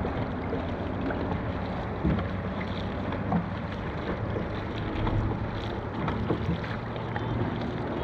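Dragon boat on the water during paddling: a steady rush of water and wind noise, with a few sharp knocks.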